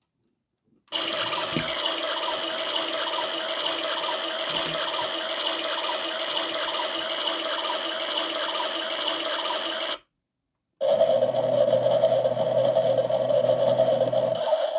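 Household washing machine running at the start of a synthetics 60° programme: a steady mechanical whir with a faint repeating rattle. About ten seconds in it cuts off abruptly, then resumes a second later as a steadier, deeper hum.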